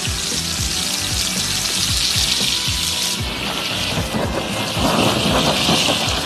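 Melted butter sizzling in a hot pan of sliced beef fillet and toasted bread, joined about halfway through by the hiss of a handheld butane blow torch flaming the meat. Background music with a steady beat runs underneath.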